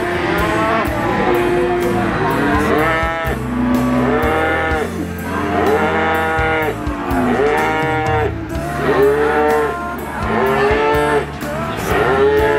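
Cattle mooing in long rising-and-falling calls, several in a row, over background music with a steady beat.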